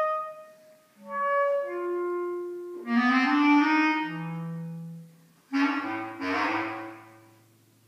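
Bass clarinet playing short phrases separated by brief pauses: a few held notes, then sharp, breathy attacks on notes that bend upward about three and five and a half seconds in.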